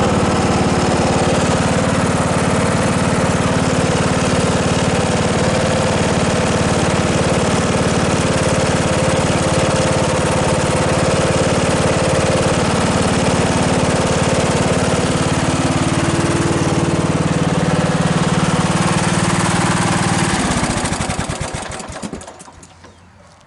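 Briggs & Stratton 15.5 HP riding lawnmower engine running steadily, its valves freshly set back to spec. About 20 seconds in it is shut off and coasts to a stop, its beats slowing as it dies away.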